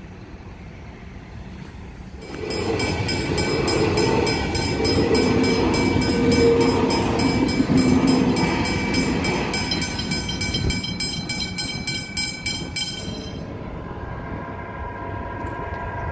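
Electric suburban train passing close by over a level crossing. Its running noise rises suddenly about two seconds in and eases off after about thirteen seconds, with a rapid, evenly repeating ringing over it that fits the crossing's warning bell.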